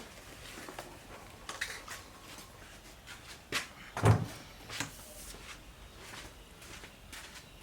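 Scattered knocks, clicks and clunks of hard objects being handled, the loudest a dull thump about four seconds in.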